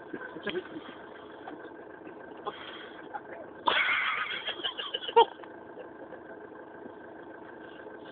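A vehicle engine runs steadily, heard from inside the van. About three and a half seconds in comes a loud burst of rustling noise and knocks, lasting under two seconds.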